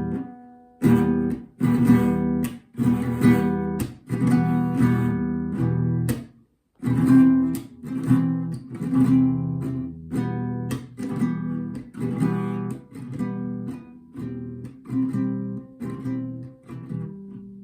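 Acoustic guitar strummed in a steady down-up rhythm on two open chords, E minor and C, with no barre. There is a brief break about six seconds in.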